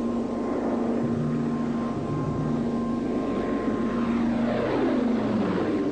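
Light propeller airplane engine droning steadily, with a second, lower engine note joining about a second in. Near the end the pitch falls steeply.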